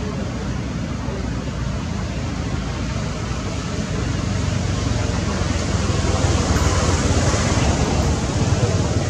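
Steady rushing outdoor noise with a deep rumble underneath, growing louder about halfway through. No monkey calls stand out.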